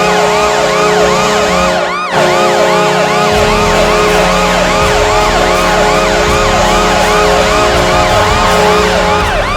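Custom hockey goal horn: a steady horn blast held under a siren-like whoop that rises and falls about three times a second. There is a brief break about two seconds in, and a deep bass comes in shortly after.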